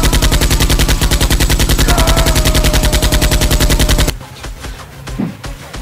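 A long burst of automatic machine-gun fire, about twelve shots a second, that stops abruptly about four seconds in; a single thud follows about a second later.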